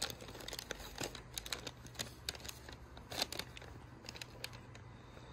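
Brown paper bag rustling and crinkling in short, irregular crackles as it is folded and pushed into place by hand.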